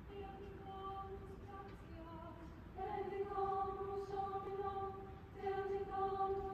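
Girls' high school choir singing long held notes in harmony, soft at first and swelling louder about three seconds in.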